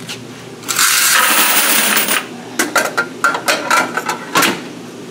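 A steel coin box full of quarters tipped into a plastic bucket: a jingling rush of coins about a second in that lasts over a second. It is followed by a run of sharp metallic clicks and clinks as the coin box is handled at the machine's slot.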